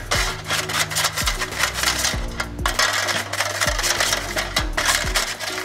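Music with a beat, over a stiff paintbrush scrubbing piston rings in a shallow tin pan of cleaning fluid: quick scratchy brush strokes with light clinks of the rings against the metal pan.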